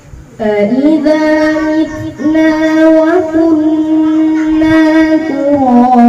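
A boy's voice chanting Quran recitation from memory into a handheld microphone. It starts about half a second in and carries long held notes that slide between pitches, dropping lower near the end.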